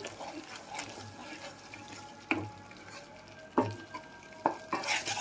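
Wooden spatula stirring and scraping thick masala paste around a kadai as it fries with spices, with a faint sizzle underneath. A few sharper scrapes of the spatula against the pan stand out, about two, three and a half and four and a half seconds in.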